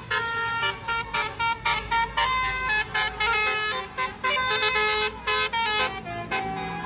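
Basuri-type telolet bus horn, a multi-tone musical air horn, playing a quick tune of short pitched notes that change pitch every fraction of a second.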